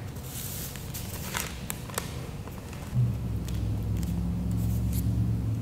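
Paper rustling and small taps as cut-out paper pieces are handled and pressed onto a brown paper bag. About three seconds in, a low steady rumble sets in and holds.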